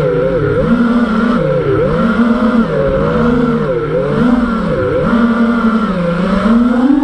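Brushless motors of a 5-inch FPV freestyle quadcopter (TBS Masterpilot 2400 kV on 4S) whining, the pitch surging and dropping with the throttle about once a second, then climbing steadily near the end.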